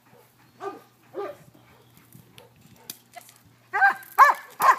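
A dog barking: two shorter, softer calls about a second in, then three loud barks in quick succession near the end.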